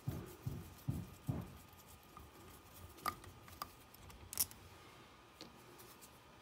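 Hex screwdriver backing a screw out of the front C-hub of a Traxxas TRX-4 Sport RC crawler: a soft rhythmic rubbing with each twist, about two or three a second, for the first second and a half. A few light clicks of small parts follow.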